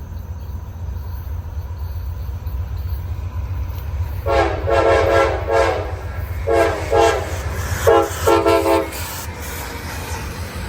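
CSX freight locomotive's multi-chime air horn sounding a horn show: a long blast starting about four seconds in, then several shorter blasts in quick succession, over a steady low rumble.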